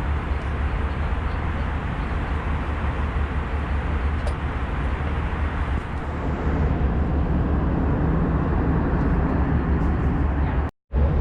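Airbus A320 cabin noise in flight: a steady low rumble with airflow hiss. It gets a little louder about six and a half seconds in and drops out briefly near the end.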